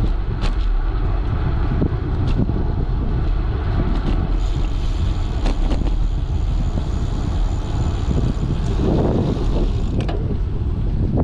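Wind buffeting the microphone of a camera on a moving bicycle, a steady low rumble, with a few sharp clicks and a thin high whine in the middle.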